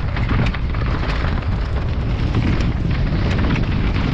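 Downhill mountain bike ridden fast over a rocky gravel trail: tyres crunching over stones and the bike clattering with many quick knocks, under a heavy wind rumble on the helmet or chest camera's microphone.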